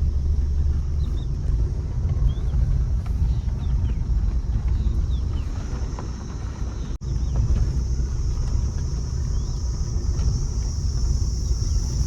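Car being driven, with a steady low rumble of engine and road noise that drops out for an instant a little past halfway. A high-pitched buzz grows louder in the second half.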